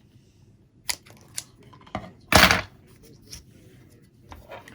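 Scissors cutting a length of black heat-shrink tubing: a few sharp clicks, then one louder short rasping cut about two and a half seconds in, and a light click after it.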